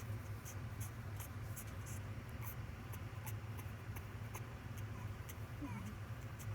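Soft scratching and rustling of a puppy being handled: short, faint scrapes several times a second over a steady low hum.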